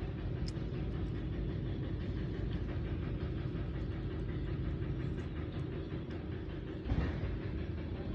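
Steady low rumbling noise, with a short louder swell about seven seconds in.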